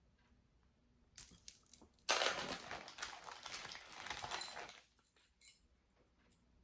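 Costume jewelry being handled: a few small clicks, then about three seconds of clinking and rustling as pieces are moved and lifted out of the lot.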